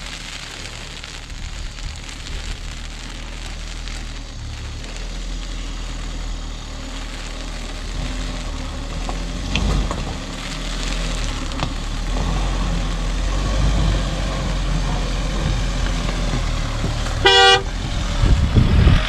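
Mahindra Thar's engine running under load on a rough off-road climb, slowly growing louder, with a few knocks along the way. A short car-horn toot sounds near the end.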